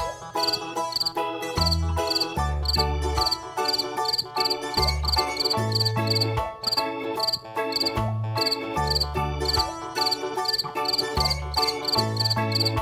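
Cricket chirping steadily, about two or three short pulsed chirps a second, over background music with a plodding bass line.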